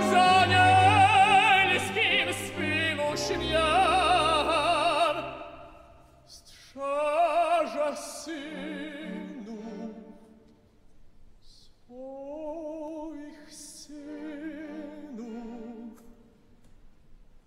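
Operatic tenor singing with a full symphony orchestra. A loud held phrase with wide vibrato over orchestra fades away about six seconds in, then soft phrases follow with light accompaniment.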